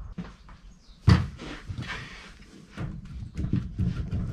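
A single sharp knock about a second in, then lighter clunks and scrapes as the cylinder head of a Coventry Climax engine is gripped and worked loose by hand.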